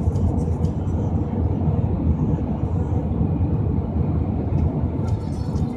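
Steady low rumble of road and engine noise heard from inside a car cruising at highway speed.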